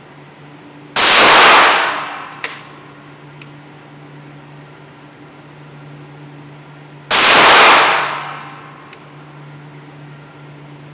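Two pistol shots about six seconds apart, slow aimed fire, each echoing for about a second, with a few light ticks after the first as the spent case lands. A steady low hum of range ventilation runs underneath.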